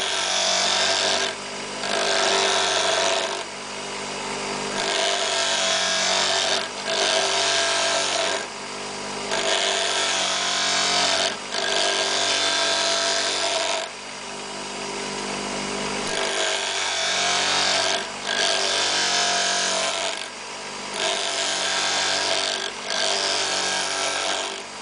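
Bench grinder running, its wheel grinding a twist drill bit held in a sharpening arm, in repeated passes about every two seconds as the bit is swung back and forth across the wheel, with the motor's steady hum in the short gaps. The bit's chipped cutting edge is being ground back to sharpen it.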